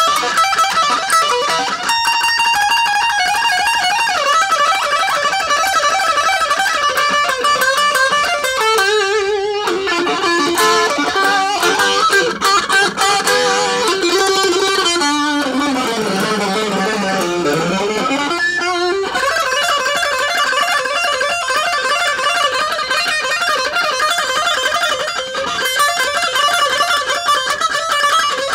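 Guitar playing a fast instrumental piece, note after note in quick runs. A little past halfway the pitch slides down and then climbs back up.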